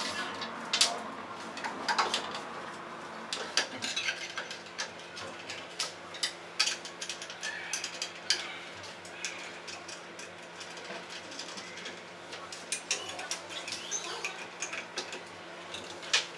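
Irregular metallic clicks and clinks as a blade is fitted onto a circular saw: the blade, flange washer and hex key being handled against the saw's guard and base plate.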